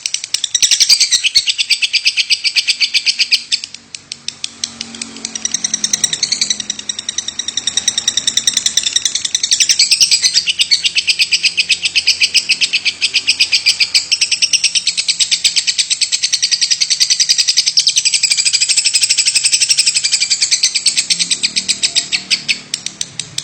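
Lovebird singing a fast, unbroken run of sharp chattering notes, many to the second. It dips briefly about four seconds in and weakens near the end.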